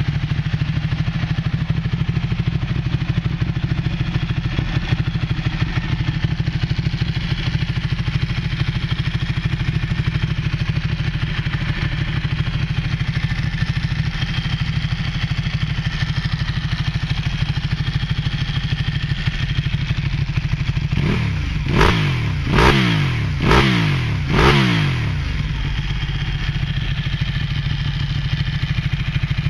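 2012 Ducati 1199S Panigale's 1198 cc Superquadro L-twin running at idle through a Termignoni exhaust. About two-thirds of the way in it is revved four times in quick succession, about a second apart, each rev climbing and dropping back to idle.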